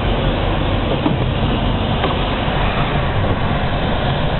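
Steady engine and road noise inside the cab of a moving truck.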